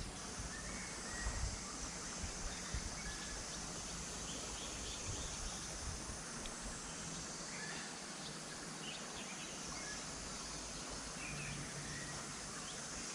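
Steady outdoor ambience beside a flowing creek: an even hiss of running water and background, with scattered short bird chirps and a few soft low bumps in the first couple of seconds.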